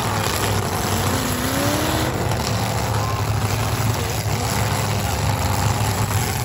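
Demolition derby cars' engines running together in a loud, steady low rumble.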